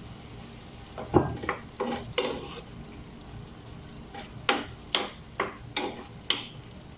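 Cooking utensil stirring beef and broccoli frying in a pan, scraping and knocking against the pan in two runs of quick strokes, over a low sizzle.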